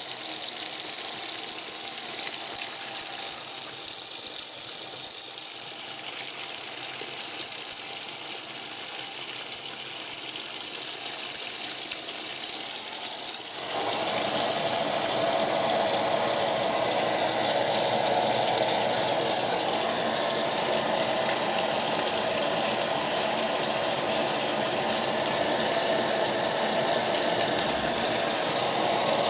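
Electrolux Top 8 top-loading washing machine filling with water during its rinse cycle, a steady rush of water. About halfway through, the sound changes abruptly and becomes louder and fuller.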